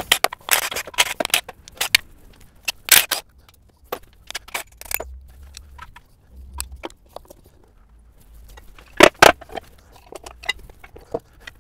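Hand tools and metal parts clicking and clanking at irregular intervals while the timing cover comes off a Toyota 2GR-FE V6 on the bench, with two louder clanks about nine seconds in.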